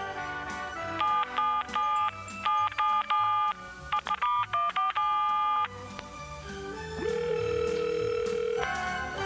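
Telephone touch-tone dialing: a quick string of about a dozen beeps as a long-distance number is dialed, then one steady ringing tone on the line, over background music.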